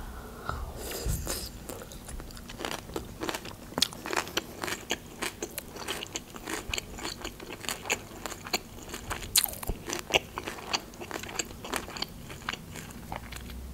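Close-up chewing of a mouthful of fresh raw vegetable salad (shredded cabbage, carrot, bell pepper): crisp crunches and wet mouth clicks in an irregular run.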